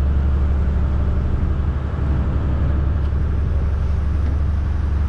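A boat's engine running steadily, giving a deep, even drone.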